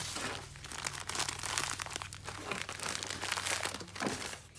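Plastic packaging and bubble wrap crinkling and rustling irregularly as a hand rummages through a packed cardboard shipping box and handles bags of model-railroad grass material.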